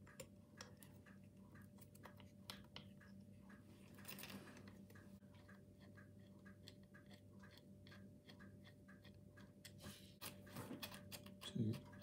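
Faint ticks and small clicks of a small screwdriver turning tiny M2 screws to fix a Raspberry Pi camera module to its bracket, over a low steady hum. A brief low sound shortly before the end.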